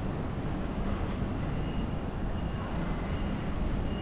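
Steady street background of a city on foot: a continuous traffic rumble with a faint high whine running through it.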